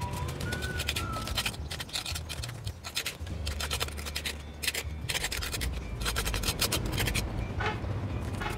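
Small steel trowel scraping and carving out a sand-and-cement stove lining: a run of irregular gritty scrapes, some short, some drawn out.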